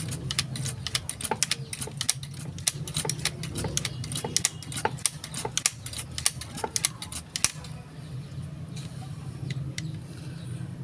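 Rapid, irregular metallic clicking and clinking of small parts and tools being handled during airgun repair work. It thins out to occasional clicks about seven and a half seconds in.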